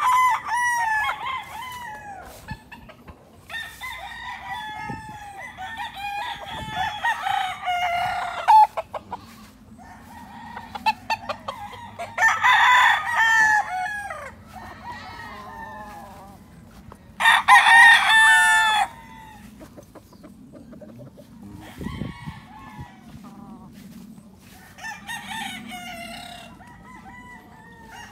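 Several roosters crowing one after another, their calls sometimes overlapping, with short lulls between crows.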